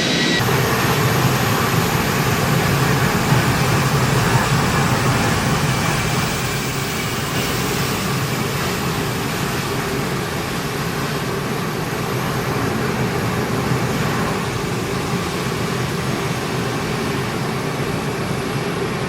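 Four turbofan engines of a C-17 Globemaster III running at high power: a steady rushing noise with a thin high turbine whine above it, easing slightly toward the end.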